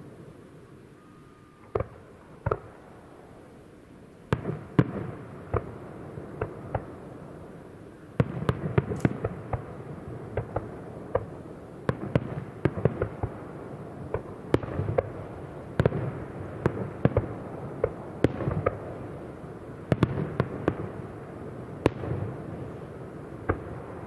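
Aerial fireworks shells bursting with sharp bangs: two reports about two seconds in, a few more from about four seconds, then dense volleys of bangs from about eight seconds on, over a continuous low rumble.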